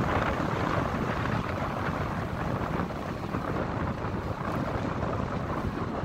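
Storm wind blowing across the microphone: a steady rush of noise.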